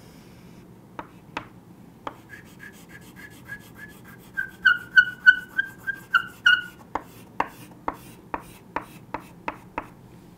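Chalk being rubbed back and forth on a chalkboard to shade in a drawing: a run of short, high squeaks about three a second, then dry scraping strokes about two a second in the last few seconds.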